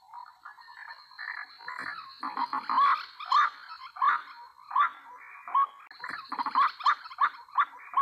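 White-breasted waterhen calling: a run of loud, repeated rising croaks, first about one every two-thirds of a second and then quicker in the second half, with softer chattering before the loud run begins.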